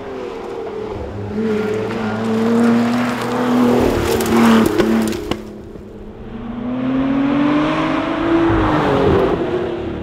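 Lotus Exige Sport 350's supercharged V6 revving hard as the car drives past at speed. About five and a half seconds in, the sound cuts off suddenly and picks up again on another pass, with the engine note climbing steadily and then dropping sharply near the end.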